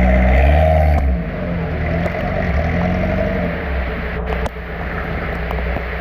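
Off-road 4x4's engine revving under load, loudest in the first second, its pitch wavering up and down, with a couple of sharp knocks a little past the middle.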